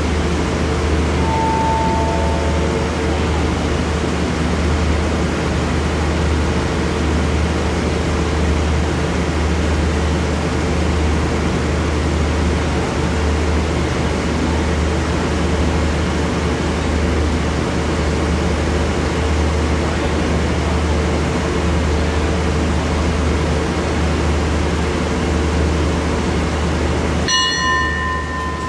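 Steady low drone of the standing diesel-hauled express train running at idle. A short whistle tone sounds about a second and a half in, and near the end the train's horn starts to sound, several pitches at once.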